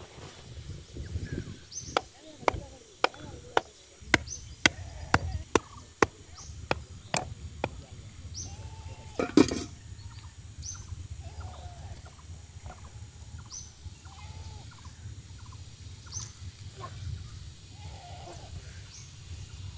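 A wooden stick knocking sharply against an aluminium pot, about twice a second for several seconds, then one louder knock. Short animal calls follow.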